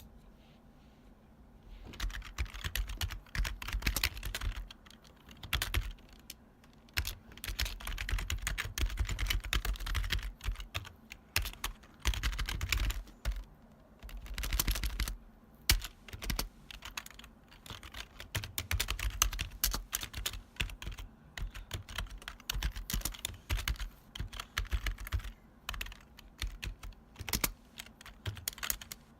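Typing on a retro keyboard with long key travel: loud, clacky keystrokes in quick runs broken by short pauses, starting about two seconds in.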